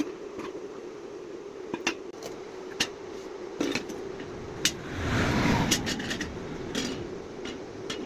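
A steady machine hum in a metalworking shop, with scattered sharp metal knocks and clanks, about half a dozen, and a louder rushing noise lasting about a second near the middle.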